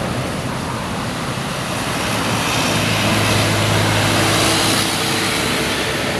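Heavy diesel engine of a passing bus or truck pulling uphill under load, a steady low drone over tyre and road noise. It grows louder about halfway through, then eases near the end.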